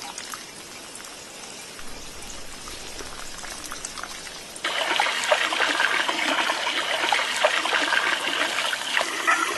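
Faint background for the first half, then water splashing and trickling at a red plastic barrel, starting abruptly about halfway in and running on as a dense, crackly patter.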